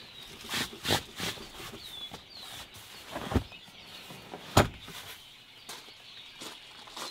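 Knocks and rubbing as a rubber seat-back cover is shifted and the Tesla Model Y's folded rear seat back is raised, with two heavy thumps about three and a half and four and a half seconds in as the seat back comes up and latches. Birds chirp faintly in the background.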